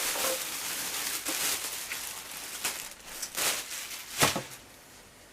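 Packaging being handled during an unboxing: rustling and crinkling with several sharp knocks, the loudest about four seconds in, then it goes quiet near the end.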